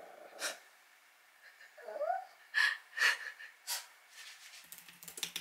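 Small dog growling when teased, with a rising whine about two seconds in and a few short, sharp huffs. Computer keyboard typing starts near the end.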